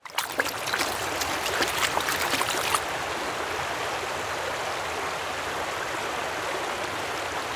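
Running water like a stream. For the first three seconds there are quick splashy spatters and drips, then it settles into a steady rush of flowing water.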